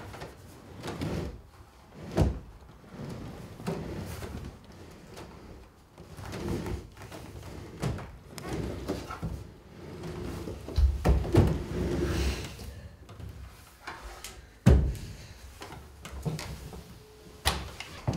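A heavy wooden dresser being shoved and shifted into place: irregular scrapes, knocks and thumps of wood, with one hard thump about three-quarters of the way through.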